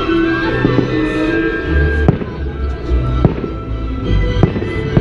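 Fireworks shells bursting: three sharp bangs about a second apart in the second half, over the fireworks show's music soundtrack playing steadily.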